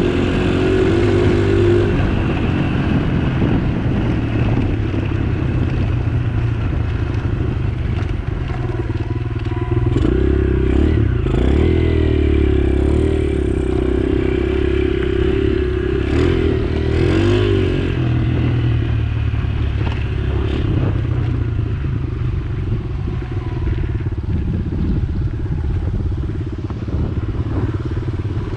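An engine running steadily and close, its pitch wavering and shifting between about ten and eighteen seconds in.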